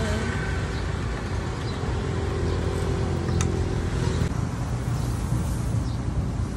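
Steady low rumble of street traffic, with a motor vehicle's engine hum running close by that stops about four seconds in. A single sharp click comes a little after three seconds.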